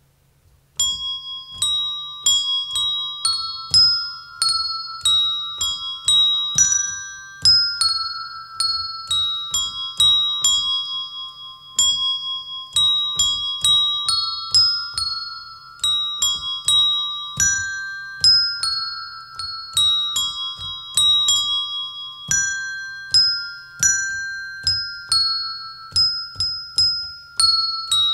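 A set of colored desk bells played by pressing their tops, ringing out a slow hymn melody one note at a time, each note ringing on while the next is struck. The bells start about a second in.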